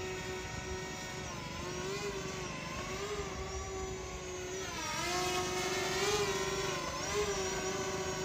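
JJRC X12 Aurora quadcopter drone's propellers whining in flight, the pitch wavering up and down as the motors change speed. It grows louder about halfway through as the drone comes lower and closer.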